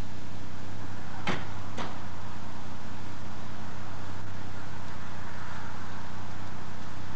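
Two sharp knocks about half a second apart, over a steady low hum and hiss of an old tape soundtrack.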